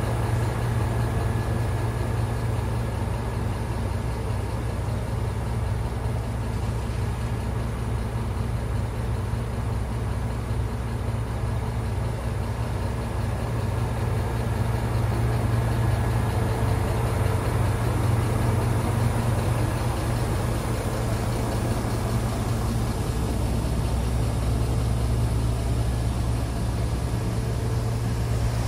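Heavy truck's straight-six diesel engine idling steadily.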